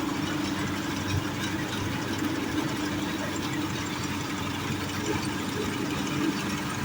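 Swaraj 855 tractor's three-cylinder diesel engine running steadily at an even pitch, with a disc harrow in tow.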